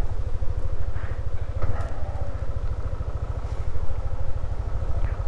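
Yamaha NMAX 155 scooter's single-cylinder engine running as it is ridden, a steady, rapidly pulsing low rumble heard up close.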